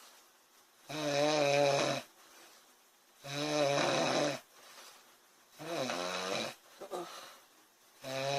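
A sleeping woman snoring in a regular rhythm. There are three pitched snores about a second long, roughly two and a half seconds apart, then a brief short sputter and the start of a fourth snore near the end.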